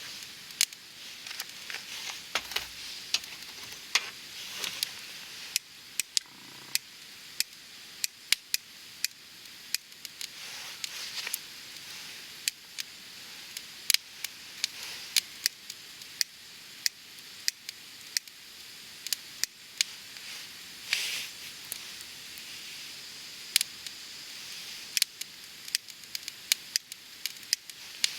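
Wood campfire burning: a steady hiss with frequent sharp crackles and pops at irregular intervals, and a short surge of hissing about three-quarters of the way through.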